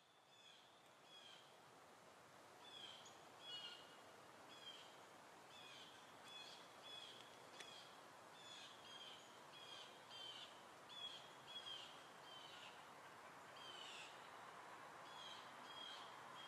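Faint outdoor ambience: short high bird calls repeating about once or twice a second over a steady background hiss.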